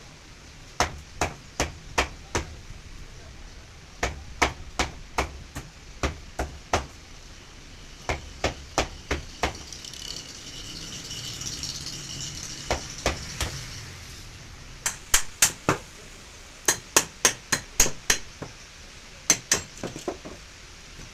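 Hammer blows during the dismantling of a washing machine's electric motor, struck in quick runs of three to six, about three a second, with short pauses between runs.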